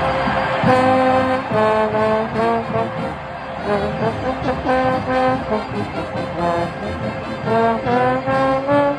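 Marching band playing a brass-led tune at full volume, the notes changing quickly over a held tone.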